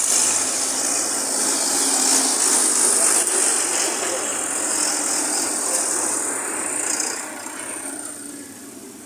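Farm tractor engine running as the tractor drives past close by. The sound is loud and steady for about seven seconds, then fades as the tractor moves away.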